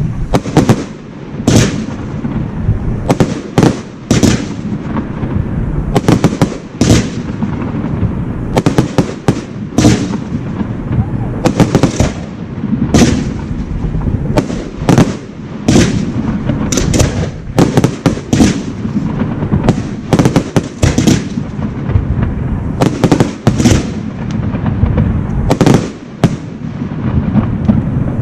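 Aerial fireworks display: a dense, irregular run of loud bangs and shell bursts, at times several a second, over a continuous low rumble.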